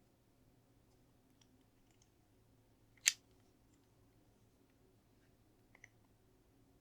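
Plastic LEGO pieces clicking as they are handled and pressed together: one sharp click about three seconds in, a fainter double click near the end, and a few light ticks.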